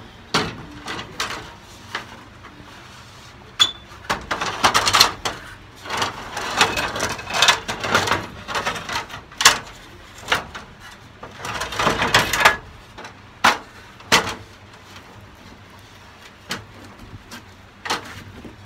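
Aluminium ladder being handled and pulled through a roof opening: irregular knocks, clanks and scraping of metal against the roof frame, busiest in the middle.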